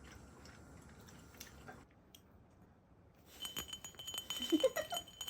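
Light clinks and taps, like utensils on dishes, starting about three seconds in, with a short voice near the end.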